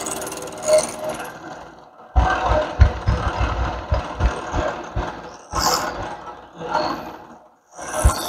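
Bridgeport milling machine's end mill cutting the plastic body of a Bug-A-Salt gun, an uneven grinding with low knocks as the work is fed through the cut. The cutting drops out briefly near the end.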